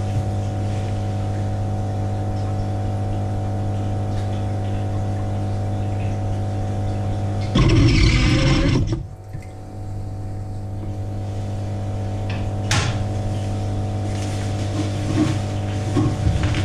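A steady low hum runs throughout. About eight seconds in, a dip net plunges into the water and scoops out a fish: a loud splashing rush lasting about a second and a half. A single sharp click comes near thirteen seconds in.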